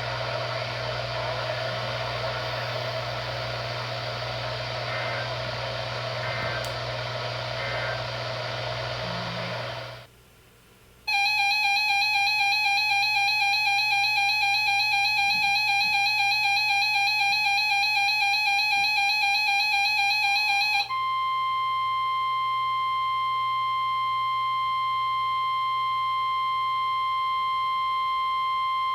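Weather radio hiss with a low hum for about ten seconds, then a short gap and a buzzy, warbling electronic alert tone for about ten seconds. It switches to the steady 1050 Hz NOAA Weather Radio warning alarm tone, the signal of the weekly alert test, which cuts off near the end.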